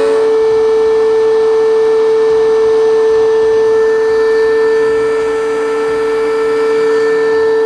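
DeWalt benchtop thickness planer running with no board in it, its cutterhead and motor giving a loud, steady, high-pitched whine that holds one pitch.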